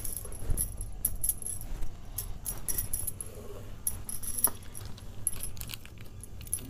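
Thin plastic ice-pop tube packets crinkling and rustling as they are handled, with light clicks and knocks of plastic bottles and a plastic funnel being moved about; a couple of sharper knocks stand out, one near the start and one past the middle.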